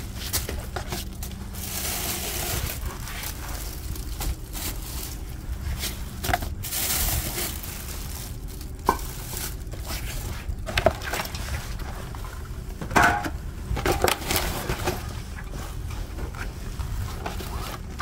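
Groceries being unpacked from insulated delivery bags: the bags' foil-lined fabric and plastic grocery sacks rustling, with scattered knocks as items are set down on concrete, the loudest a little after halfway.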